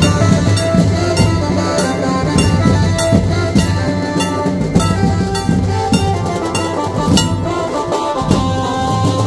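Banjo party band playing loud procession music: sharp drum hits two or three times a second under a held, sustained melody line.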